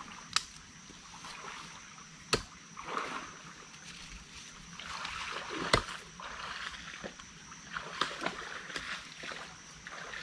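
Rustling through dry leaves and undergrowth, broken by several sharp snaps of breaking plant stems, the loudest about two and a half and six seconds in.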